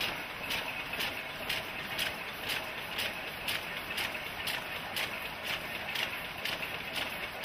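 Schiffli embroidery machine running, clacking in a steady rhythm of about two strokes a second.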